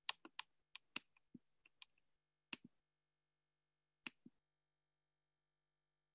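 Faint, irregular sharp clicks over near silence: about a dozen in the first two seconds, then one about two and a half seconds in and one about four seconds in, then nothing.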